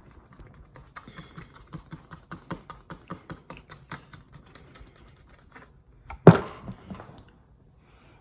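Light clicking and tapping, about four or five a second, from a cardboard product box being handled close to the microphone, then a single loud thump about six seconds in.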